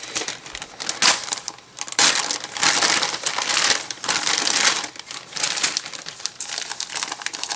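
Plastic bags of LEGO parts crinkling and rustling as they are handled, in several bouts of a second or so.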